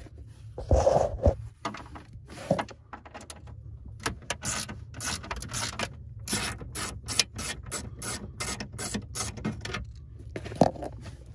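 Socket ratchet clicking rapidly, about three or four clicks a second, as it backs out a quarter-inch hex-head screw from a steering column cover.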